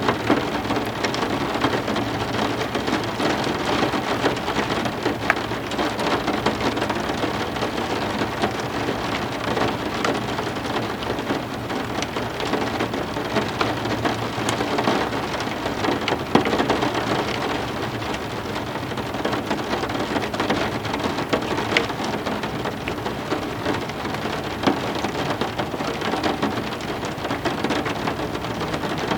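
Steady heavy rain falling on a surface, with many sharp individual drop ticks, and thunder rumbling low underneath.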